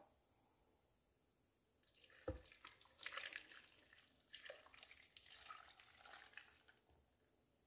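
Liquid poured from a glass measuring jug splashing into a plastic blender jar over chopped carrot, grapefruit and ginger, beginning about two seconds in with a light knock and running unevenly for about five seconds.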